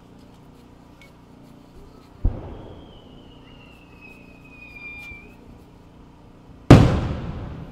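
Aerial firework shell: a thump as it is fired from the mortar, a thin whistle as it climbs that sinks slowly in pitch, then a loud bang as the shell bursts near the end, dying away in a rumbling echo.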